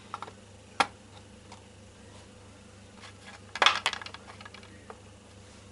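Small metal parts and a soldering iron handled on a wooden work board: a single sharp click about a second in, then a brief clatter of clicks about three and a half seconds in, the loudest sound, with a few faint ticks between.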